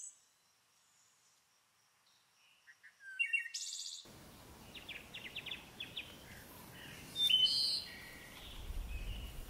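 Silence for the first couple of seconds, then outdoor bush ambience with wild birds calling: a quick run of chirps, a louder call about seven seconds in, and a low rumble near the end.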